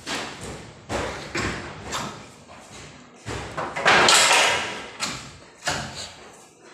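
Wooden bed-frame slats and rails knocking and clattering against each other and the tile floor as the frame is taken apart, in a string of separate knocks. The loudest is a longer clatter about four seconds in.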